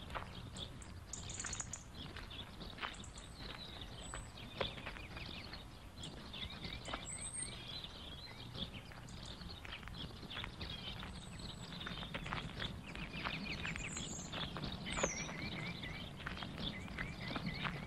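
Birds chirping with short repeated calls and a few high whistles, over faint steady outdoor ambience with scattered clicks.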